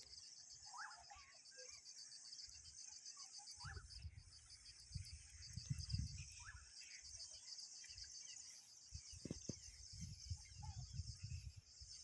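Chorus of insects making a continuous, high, finely pulsing trill, with a few short rising chirps early on. Low rumbles come in twice, in the middle and later on.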